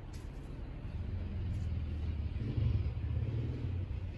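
Low, steady rumble like a vehicle in motion, swelling slightly about two and a half seconds in.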